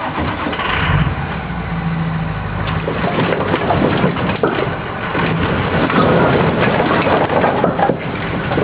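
A heavy machine's engine running steadily, and from about three seconds in a dense, irregular clatter and knocking of wood tumbling.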